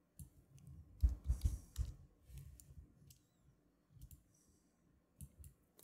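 Scattered computer mouse and keyboard clicks, busiest in the first two seconds, with some soft low thumps among them.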